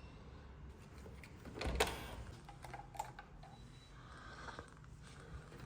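Faint scattered clicks and knocks, with one louder thump about two seconds in.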